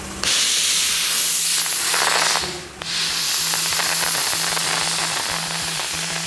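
Dry ice blasting nozzle blasting a plastic fuel tank: a loud, harsh hiss of compressed air and dry ice pellets. It starts about a quarter second in, drops out briefly near the middle, then starts again.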